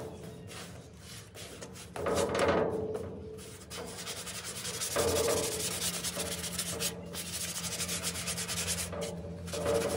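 Paintbrush scrubbing red primer onto a sheet-metal signboard: a run of quick, scratchy rubbing strokes that get louder about two seconds in and again around five seconds.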